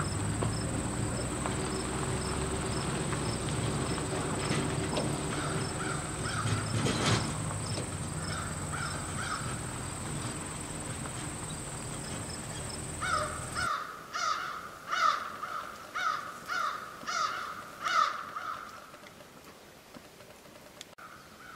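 A crow cawing repeatedly: a few calls in threes at first, then a louder run of about two caws a second. For the first two-thirds this is over a steady low rumble and a thin high whine with regular ticks, which cut off suddenly.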